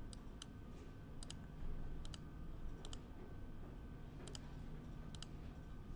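Computer mouse clicking, mostly in quick pairs, about once a second over a faint steady electrical hum.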